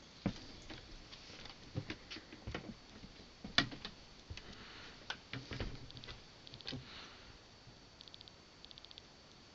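Irregular knocks, clicks and creaks of someone moving over wooden attic floorboards and handling the camera, with the sharpest knock about a third of the way in. Short bursts of fast, faint, high ticking come and go.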